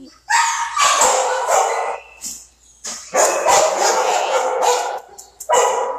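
Shelter dogs in their kennels barking loudly in runs of rapid, overlapping barks, with a short lull about two seconds in.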